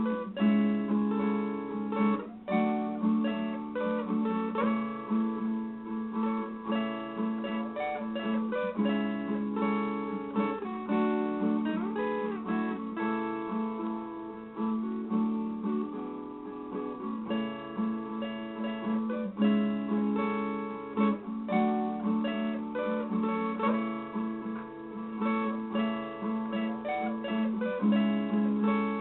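Solo viola, an acoustic plucked-string instrument, playing a slow melody over chords. Some notes slide in pitch, and a low note keeps sounding underneath.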